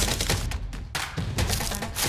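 Background music with a few thuds.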